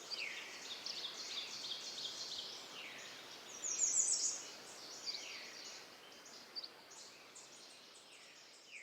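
Birdsong: repeated quick phrases of high chirping notes, each series falling in pitch, with a clear down-slurred whistle every two to three seconds. The birds are loudest about four seconds in, and the whole fades out gradually toward the end.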